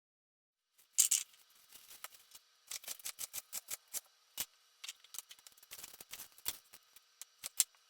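Kitchen scissors snipping: an irregular run of short, sharp clicks, loudest about a second in.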